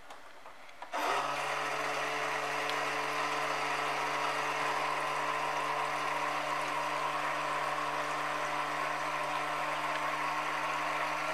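A toy kitchen faucet's small battery-powered water pump switches on about a second in and runs steadily with a motor hum, water pouring from the faucet into the plastic sink.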